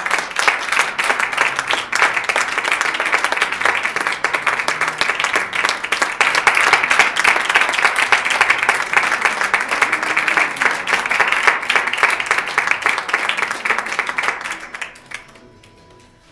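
Audience applauding: a long round of clapping that fades out near the end.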